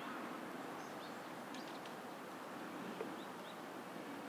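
Quiet outdoor ambience: steady background noise with a few faint, short, high bird chirps and a single soft tap about three seconds in.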